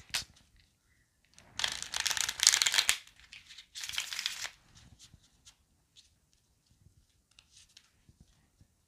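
A deck of tarot cards being shuffled by hand: a longer burst of rapid card flutter about a second and a half in, a shorter one about four seconds in, then a few light taps of cards.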